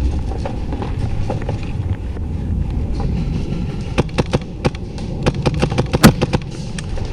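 Airsoft gunfire: a scatter of sharp pops, single and in quick runs, from about four seconds in until near the end. Under it runs a steady rumble of movement and handling noise.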